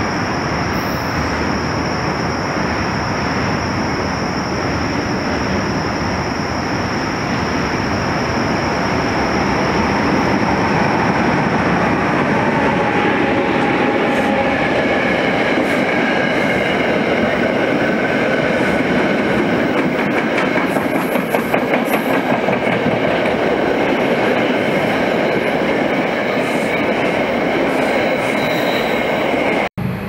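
NJ Transit electric-hauled commuter train approaching and passing close by: a steady loud rush of wheels on rail, with high whining tones coming in about halfway through and a run of clicking from the wheels on the track around two-thirds through. The sound cuts off abruptly just before the end.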